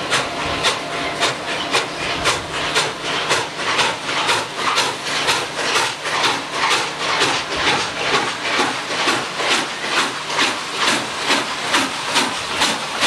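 Norfolk and Western Class J No. 611, a 4-8-4 steam locomotive, working slowly under power: its exhaust chuffs steadily, about three beats a second, over a hiss of steam.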